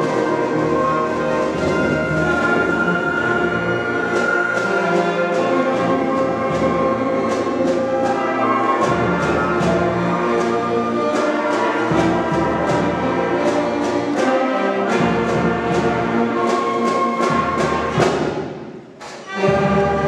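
Student concert band playing: clarinets, saxophones, flutes and brass over a regular percussion beat. Near the end a loud accented hit rings away into a brief pause, and the band comes back in.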